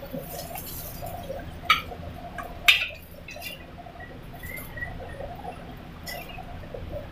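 Metal spatula scraping and knocking against a steel wok as fried noodles are scooped out onto a plate, with two sharp clanks about two and three seconds in and a few small squeaks of metal on metal, over a steady low rumble.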